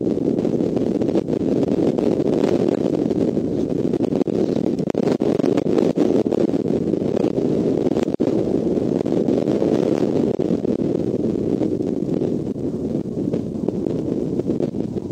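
Steady wind noise rumbling on an outdoor nest-camera microphone.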